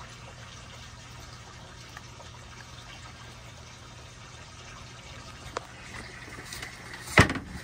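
Water trickling steadily over a low hum, with a couple of faint ticks and one sudden loud impact near the end.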